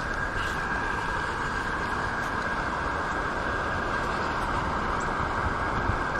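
Steady rushing of river water spilling over a lowhead dam, a constant even roar.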